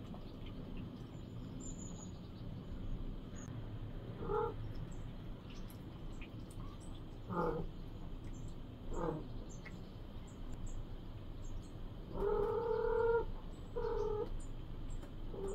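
Cat meows: a few short calls spread through the first ten seconds, then a longer, louder meow about twelve seconds in and a shorter one just after.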